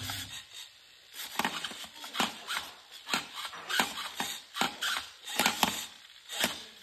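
Dome panel servos of an R2-series astromech droid replica whirring and clicking as the pie panels open and close, in an irregular run of about a dozen short bursts.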